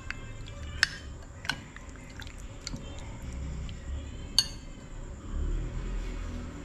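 A metal spoon stirring sauce-coated chicken wings in a glass bowl: wet squelching, with three sharp clinks of the spoon against the glass.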